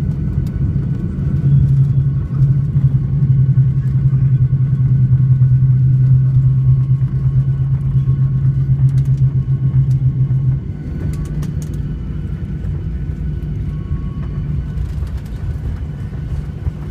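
Jet airliner cabin noise during the landing roll: a loud, steady low rumble of the engines and wheels on the runway. It is strongest from about a second in, then drops noticeably about ten seconds in.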